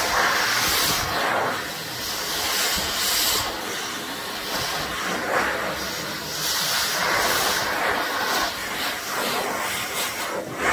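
A high-velocity dog dryer (dog blaster) running, blowing a steady rush of air through a dog's wet leg and paw fur, the hiss swelling and fading several times.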